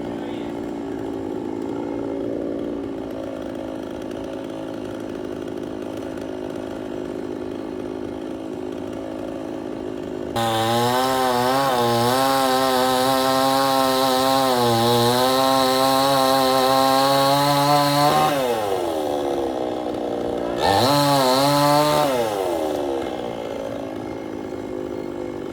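Chainsaw idling, then opened up to full throttle for about eight seconds with its pitch wavering, falling back, given one more short rev, and dropping back to idle.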